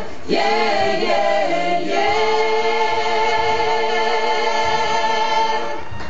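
Mainly female a cappella choir singing the close of a song: a couple of seconds of moving vocal lines, then one long held chord that stops shortly before the end.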